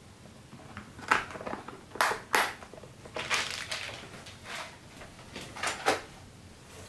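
Small pieces of fused glass clicking and rattling in a plastic compartment box as they are sorted through by hand: a string of sharp clicks with short scraping rattles between them.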